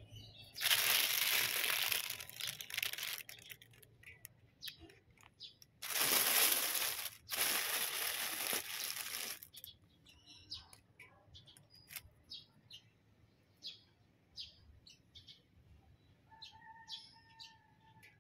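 A clear plastic fruit-protection bag rustling and crinkling as it is handled, in two long bursts during the first half. Short high bird chirps follow, with one held call near the end.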